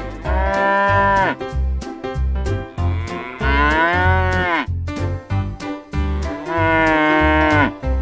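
A cow mooing three times, each call lasting about a second with its pitch dropping at the end, over background music with a steady beat.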